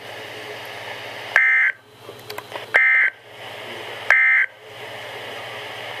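NOAA Weather Radio sounding three short EAS/SAME digital data bursts, about a second and a half apart, over low static hiss. These are the end-of-message bursts that close the Special Marine Warning broadcast.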